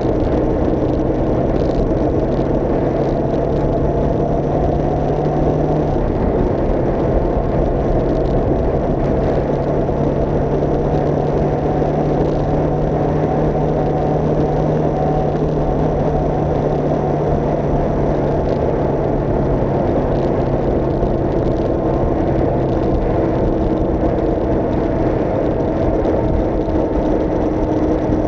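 Engine of the vehicle carrying the camera, running steadily while driving on a paved road, with a thick layer of tyre and wind noise. The engine note shifts slightly about six seconds in.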